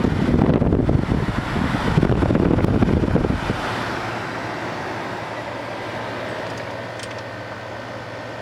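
Frigidaire dehumidifier running with its compressor and fan on, a steady low hum. For about the first three and a half seconds a louder rumbling noise covers the hum, then it settles back to the steady hum.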